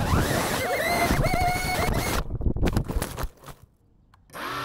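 FPV quadcopter's electric motors whining, their pitch wavering up and down through a flip. Then a run of knocks as the drone hits the grass, after which the motors cut out for about a second and spin back up near the end.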